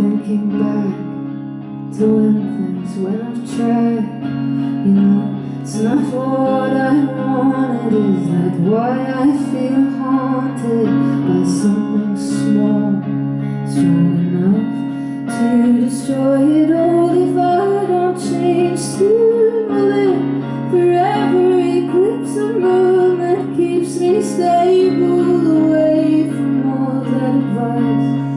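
Live solo song: a woman's voice sings a long, bending melody over sustained, ringing guitar chords with light strumming.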